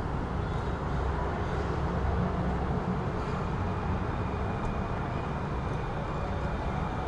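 City traffic ambience: a steady low rumble of vehicles, with no single event standing out.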